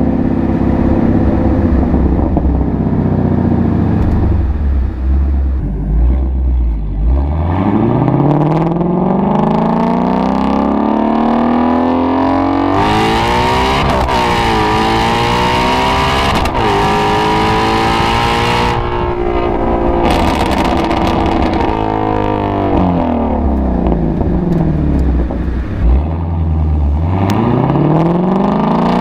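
Shelby GT350's flat-plane-crank V8 under hard acceleration. The revs rise steadily for several seconds, dip briefly about halfway through, climb again, then fall away as the throttle lifts, before rising once more near the end.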